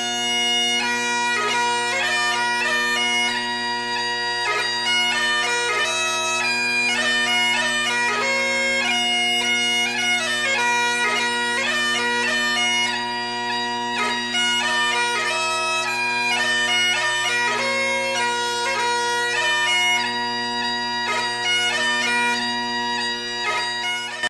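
Bagpipe music: a steady drone held underneath a busy, quickly moving chanter melody.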